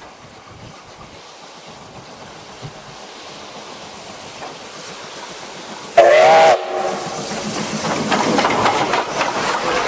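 D51 steam locomotive approaching and growing steadily louder, giving one short steam whistle blast about six seconds in, then passing close with loud rapid beats of its exhaust and running gear.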